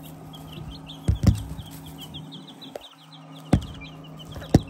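A brood of two-week-old Black Onyx chicks peeping rapidly and continuously over a steady low hum. Sharp knocks, the loudest sounds, come about a second in, at about three and a half seconds, and near the end.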